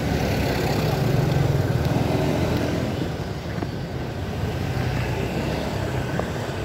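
Street traffic: motor vehicles running past close by, the nearest one loudest a second or two in, then easing off.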